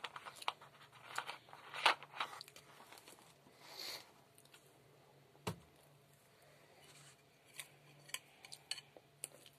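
Person eating fried potatoes: quiet chewing with scattered light clicks and taps, the sharpest about five and a half seconds in.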